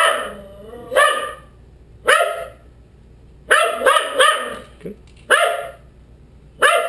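American Eskimo dogs barking: about eight sharp, separate barks at an uneven pace, several coming close together midway. The dogs are barking for treats held out in front of them.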